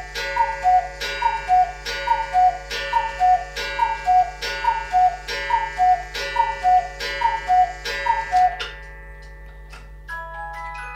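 Background music with a tick-tock beat: two alternating high notes, about two a second, over held chords. The beat stops a little past three-quarters of the way in, and soon after a melody of short stepping notes begins.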